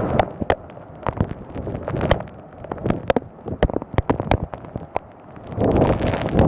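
Large storm raindrops striking close to the microphone in irregular sharp taps. Gusting wind buffets the microphone, eases about a second in, and returns strongly near the end.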